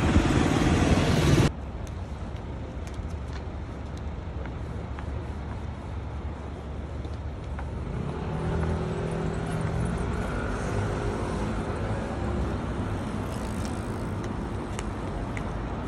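City road traffic: cars passing close by, loud for the first second and a half, then a sudden cut to quieter street traffic. A vehicle engine comes up louder about halfway through and slowly fades.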